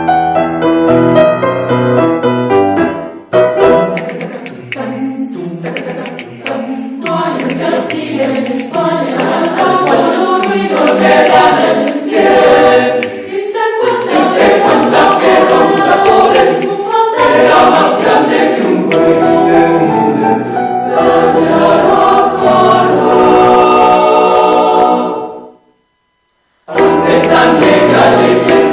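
Choral music with singing voices, in a break between radio segments. It cuts to silence for about a second near the end, then music starts again.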